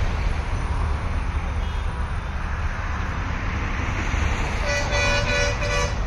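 Steady outdoor traffic noise with a low rumble; near the end a vehicle horn sounds three short toots in quick succession.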